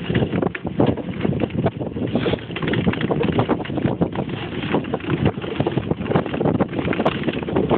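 Blokart ice-sailing at speed: wind buffeting the microphone, mixed with a dense, irregular rattle and clatter from the cart's runners and frame on the ice.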